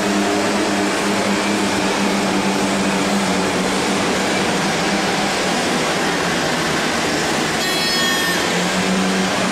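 Steyr CVT 170 pulling tractor's engine running flat out under full load as it drags the weight sled, a loud steady drone over the roar of the tyres and dirt.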